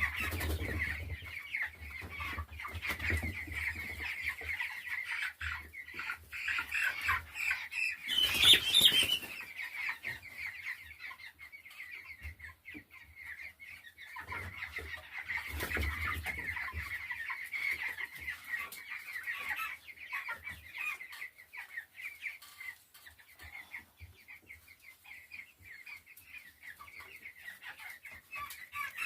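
A crowded flock of nearly three-week-old chicks peeping steadily, many short high calls overlapping, with a louder commotion about eight seconds in and again around fifteen seconds.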